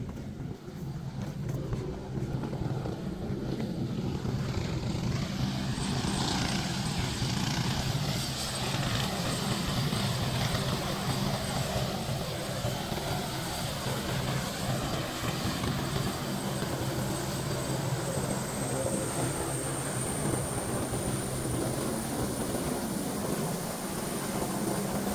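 Steady low engine drone, like an aircraft passing overhead, with a hiss over it; a thin high whine comes in about three quarters through and rises slightly.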